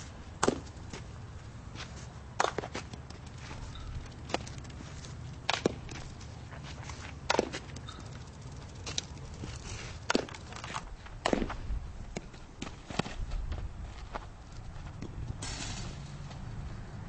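Softball drill: a series of sharp, single knocks of a softball being caught or struck, one every second or two. A steady hiss comes in near the end.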